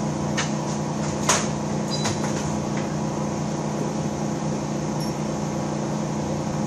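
Steady machine hum, with a few light metal clinks in the first two seconds.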